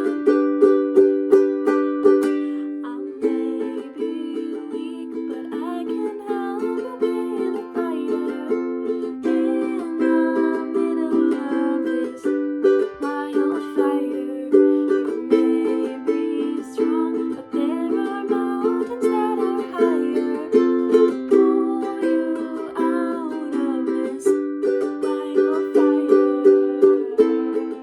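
Ukulele strummed in a steady rhythm of chords in a small room. A higher, gliding melody line weaves over the strumming at times.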